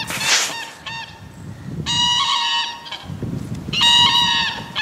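White domestic geese honking, with a few short honks and two longer drawn-out honks about two and four seconds in.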